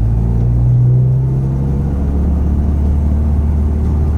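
An H22-swapped Honda Civic being driven: its engine runs with a low steady rumble of road noise, and the engine note changes between about one and two seconds in.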